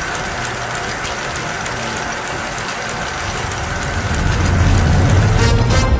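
Dense, rumbling mechanical-sounding sound effect with a steady run of faint ticks, like a ratchet or gears. Sustained music comes in near the end.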